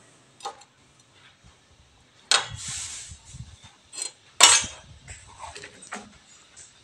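Metal-on-metal clinks and taps as a metal square is handled against a welded galvanised pipe frame: a few sharp knocks, one about two and a half seconds in followed by a short scrape, the loudest about four and a half seconds in.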